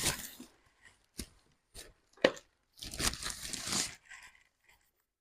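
Unboxing handling sounds: a few sharp taps and knocks, then about a second of rustling, tearing packaging as the coffee machine is unwrapped.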